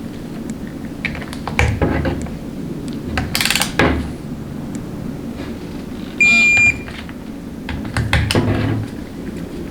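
Hand tools clicking and knocking against the 62TE transmission's valve body as its bolts are tightened. One short, high electronic beep sounds about six seconds in.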